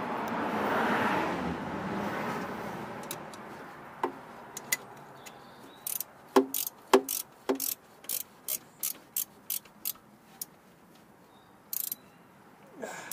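A ratchet spanner clicking in short runs, about three clicks a second, as it tightens the rear mounting bolt of the power steering pump on a Mazda MX-5 NB. A few seconds of rustling come before the clicking starts.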